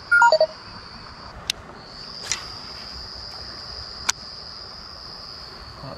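Insects droning steadily at a high pitch, dropping out briefly about a second and a half in. Right at the start a short, loud run of three or four falling notes, and two sharp clicks later on.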